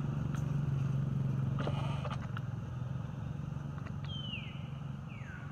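A steady low engine hum from a motor vehicle, easing after about three seconds. Two short, high squeaks falling in pitch come near the end.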